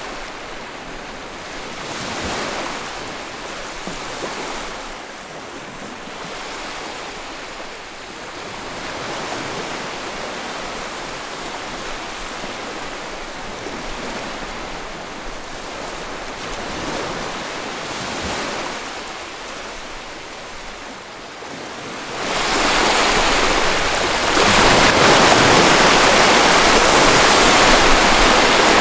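Sea waves washing onto the shore, the surf rising and falling in swells every few seconds. About twenty-two seconds in the sound jumps suddenly to a much louder, steady rush of churning water.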